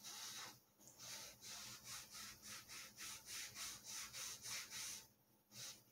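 Paper towel rubbed back and forth over a rocket body tube in quick, soft strokes, about three a second, with a brief pause and one last stroke near the end. It is stray epoxy being wiped off beside a fin fillet.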